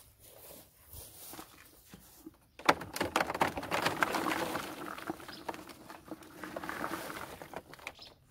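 Fresh green bean pods poured from a bucket into a plastic crate: a dense rustling clatter that starts suddenly about two and a half seconds in and runs for about five seconds.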